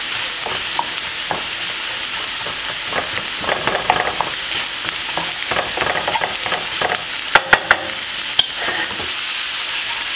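Diced bell peppers, shredded carrots and onion sizzling in hot olive oil in a nonstick frying pan, stirred with a wooden spatula that scrapes the pan. A few sharp knocks come about three quarters of the way through.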